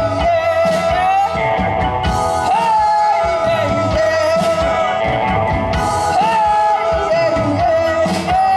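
Live rock band playing a blues-rock passage between sung lines. A lead melody repeats a short phrase that bends up about every two seconds, over drums and bass.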